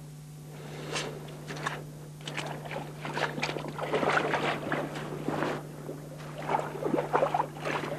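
River water splashing and sloshing in irregular bursts, sparse at first and busier after about three seconds, as an angler in waders wades into the shallows and lowers a salmon back into the river to release it. A steady low hum runs underneath.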